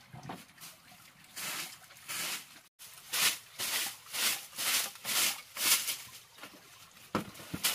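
Rhythmic rough scraping or rubbing strokes, about two a second, with a brief cut-out about three seconds in and two dull thumps near the end.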